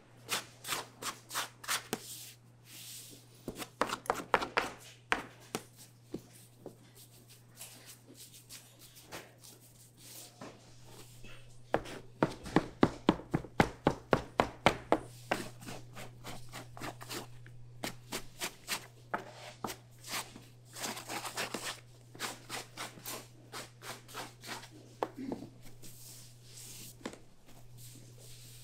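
Metal dough scraper chopping through soft dough and knocking on the table in quick runs of sharp taps, several a second, loudest about halfway through. A steady low hum runs underneath.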